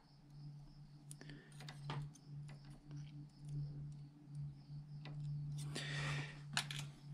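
Small steel diesel-injector parts being handled on a workbench: scattered light clicks and taps, with a short rustling scrape about six seconds in, over a steady low hum.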